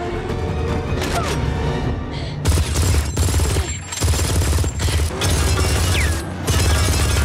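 Heavy mounted machine gun firing rapidly in several long bursts with short breaks, starting about two and a half seconds in, over a loud action film score.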